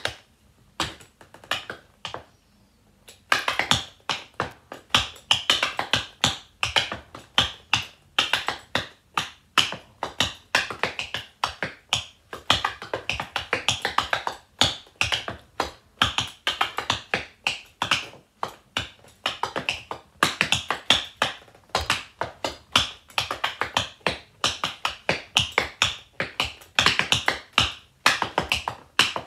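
Rhythm tap dancing: metal taps of tap shoes striking a wooden floor. A few scattered taps at first, then a fast, continuous stream of taps from about three seconds in.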